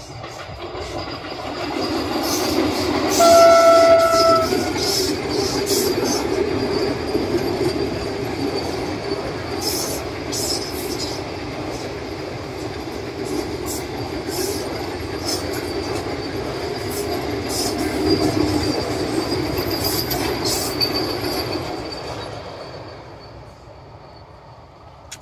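Vande Bharat Express electric multiple-unit train passing at speed: a steady rush of wheels on rails that builds over the first two seconds. Its horn sounds once, briefly, about three seconds in. Sharp clicks are scattered through the pass, and the sound fades away over the last few seconds.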